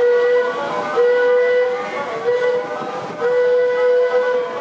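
The Mark Twain riverboat's whistle blowing four long blasts at one steady pitch.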